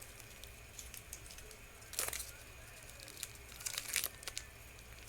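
Plastic candy wrapper crinkling in a few short, faint crackles as it is torn open at the corner.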